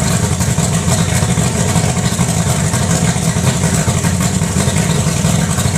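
Mercury Racing outboard motor running loud and steady at an even speed.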